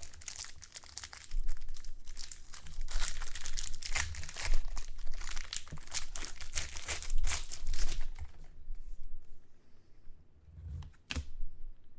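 Trading card pack wrappers being torn open and crinkled by hand: dense crackling for about eight seconds, then a few scattered rustles and a sharp click near the end.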